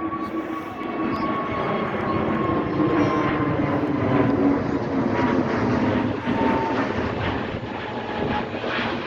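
Airliner engines as a plane passes, a loud steady noise with a whining tone that slowly drops in pitch. The sound is loudest around the middle.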